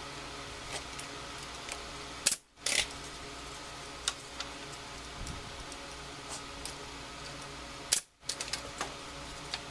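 A nail gun fires twice, about six seconds apart, driving nails through a spacer bar into wooden wine rack pieces. Small clicks and knocks of the wood being handled come in between.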